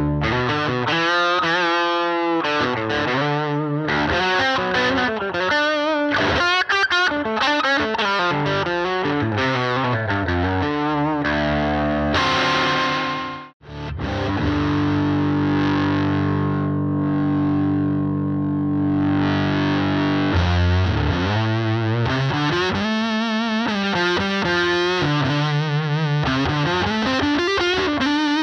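Electric guitar played through the EarthQuaker Devices Life Pedal V3 distortion in asymmetrical clipping mode at low gain, into a Fender Princeton Reverb amp: a slightly harder-edged distortion on riffs with wavering, bent notes. After a brief cut about halfway, a chord is held and rings for several seconds before the riffing resumes.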